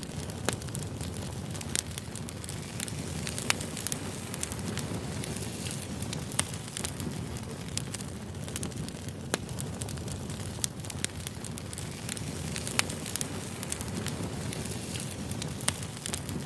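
Wood fire burning, with a steady low rush of flames and irregular sharp crackles and pops of the firewood.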